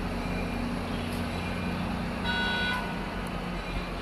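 EMD GP40 diesel locomotive, a 16-cylinder two-stroke, running with a steady low drone as a passenger train rolls slowly into the station. A brief high tone sounds a little over two seconds in.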